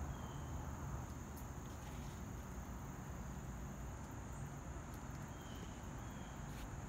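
Faint outdoor background: a steady high-pitched drone over a low rumble, with a couple of faint short chirps.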